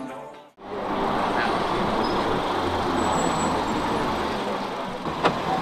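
Music cuts off about half a second in, then a car runs steadily with engine and road noise; a sharp click sounds near the end.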